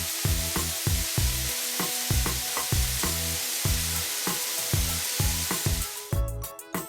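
Background music with a steady beat, overlaid by a steady sizzling hiss that cuts off suddenly about six seconds in.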